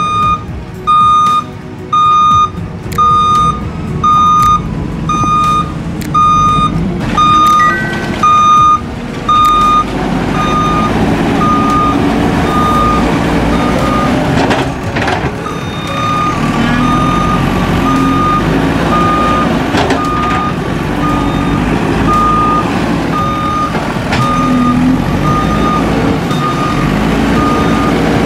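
JCB 3DX backhoe loader's reversing alarm beeping about once a second over its running diesel engine. About ten seconds in the engine grows louder and rises and falls in pitch as the machine works, and the beeps carry on more softly beneath it.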